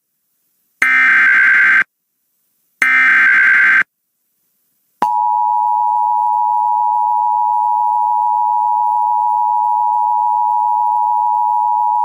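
Emergency Alert System SAME header: two rapid data bursts, each about a second long and a second apart. About five seconds in, the steady two-tone EAS attention signal (853 and 960 Hz) starts and holds. This sequence announces an incoming alert, here a National Weather Service severe thunderstorm warning.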